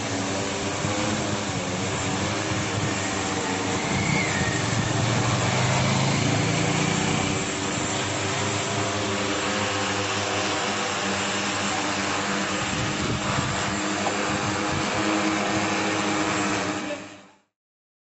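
Multirotor spraying drone hovering, its propellers giving a loud, steady droning hum with several held tones. It cuts off abruptly near the end.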